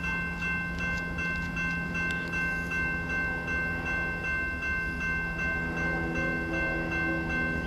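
Railroad grade-crossing bell ringing in quick, evenly spaced strokes, with a steady low hum beneath: the crossing is activated, the signal of an approaching train.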